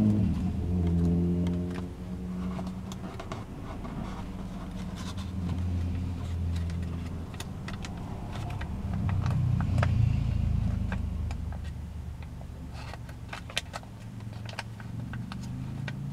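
Paper crinkling and creasing in short sharp clicks as a sheet of origami paper is folded by hand. Under it runs a low droning hum, like a vehicle engine, that swells near the start and again about two-thirds of the way through.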